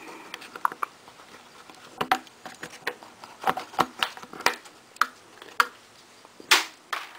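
Irregular clicks and light metallic knocks of a hand tool working a fastener on an ATV engine cover, with a louder clack near the end.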